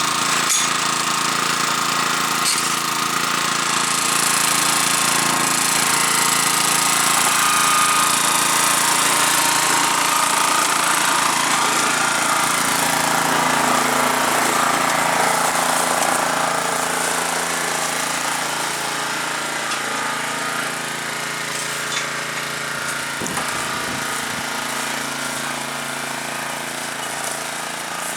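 A vintage 1987 Honda push mower's small four-stroke engine running steadily at high throttle, a little quieter in the last third.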